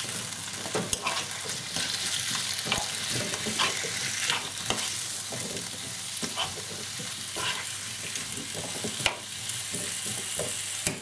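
Cubed potatoes and chopped fresh fenugreek leaves frying in hot oil in a non-stick pan, with a steady sizzle, while a spoon stirs them, repeatedly scraping and tapping against the pan.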